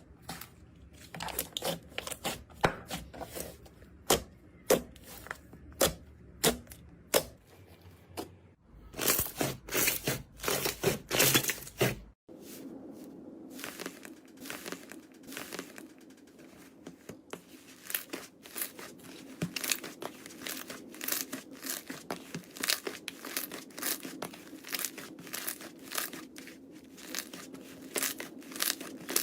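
Slime being squeezed and poked, giving off rapid sticky clicks, pops and crackles. The clicking runs irregularly throughout, with a change of recording about twelve seconds in, after which a faint steady hum lies underneath.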